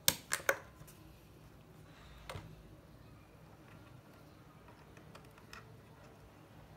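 Three sharp plastic clicks right at the start, then a softer knock about two seconds in and a few faint ticks later: a mechanical keyboard's tilt feet being snapped into the underside of the case.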